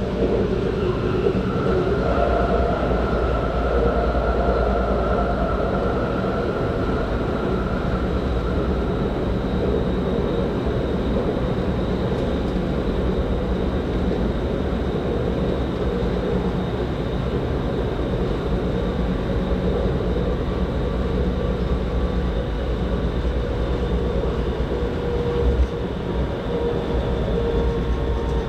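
Steady running noise of an S-Bahn passenger train at speed, heard from inside the carriage: wheels rumbling on the rails, with faint steady whining tones over it.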